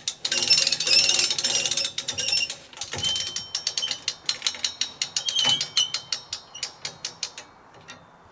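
Hand-crank winch ratchet on a hitch-mounted deer hoist clicking as a doe carcass is winched up. Fast, continuous clicking for about two seconds, then slower separate clicks that thin out and stop near the end.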